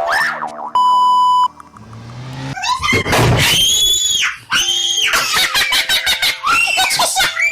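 A short steady electronic beep about a second in, then loud high-pitched screaming in long rising-and-falling cries from about three seconds on.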